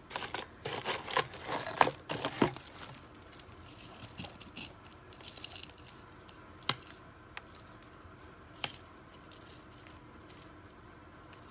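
Costume jewelry (metal bangles, chains and beads) clinking and rattling against each other in a cardboard box as a hand digs through the tangle to work a bangle free. The clinking is busy for the first few seconds, then thins to scattered single clicks.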